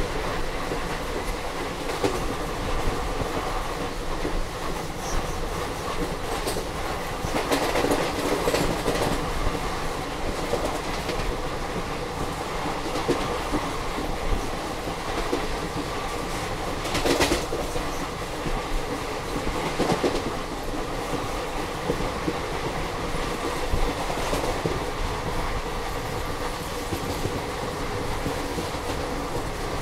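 A passenger train coach running along at speed, heard from on board: a steady rumble of wheels on rails, with sharp clacks from the wheels over rail joints every few seconds.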